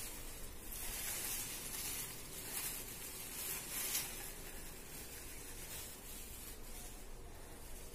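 Plastic packaging wrap rustling in short bursts as it is handled and pulled off a brush cutter's shaft and handle.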